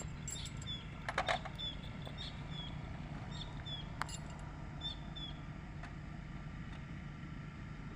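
Heavy machinery engine running steadily at idle, with short high chirps repeating over it and a few sharp metallic clicks about a second in and one more at about four seconds.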